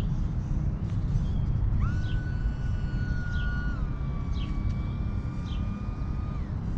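E-flite UMX Pitts micro RC biplane's electric motor and propeller whining as it flies. The whine comes in about two seconds in, steps down in pitch near the middle and cuts off with a falling pitch near the end, over a steady low rumble.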